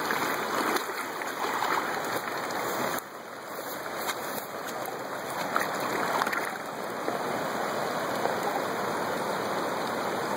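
Shallow river water flowing and lapping around hands holding a large common carp upright in the current, with a few small splashes about halfway through.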